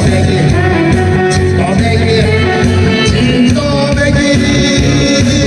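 Korean trot song: a man singing into a microphone over recorded backing music with a steady beat.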